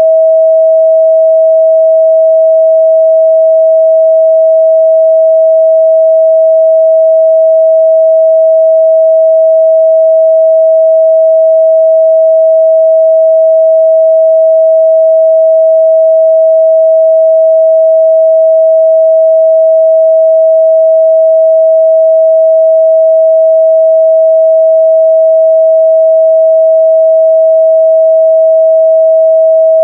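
A pure 644 Hz sine-wave test tone, held steady and loud at one pitch with no other sound.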